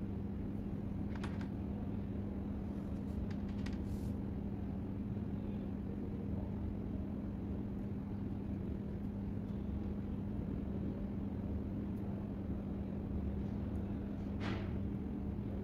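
Steady low background hum and rumble with a constant droning tone, and a few faint short clicks about a second in, around four seconds in and near the end.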